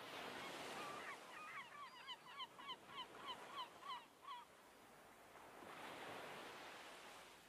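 Surf washing in and out, with a quick run of honking bird calls, about three a second, from about one to four and a half seconds in.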